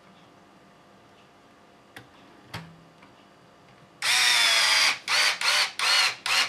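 Cordless electric screwdriver driving a shock mounting screw into an RC car's chassis. After a couple of faint clicks, the motor whines for about a second, then runs in three short bursts as the screw is snugged down.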